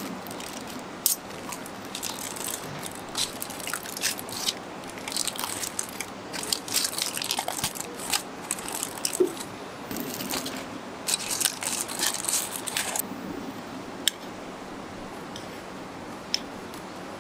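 Aluminium foil crinkling and rustling as it is torn open and pushed aside with metal spoons, with a few sharp clinks of the spoons against a steel plate. The crinkling eases off near the end.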